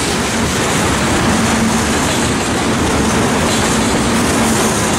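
Freight train tank cars rolling past close by: a loud, steady rumble and rush of steel wheels on the rails.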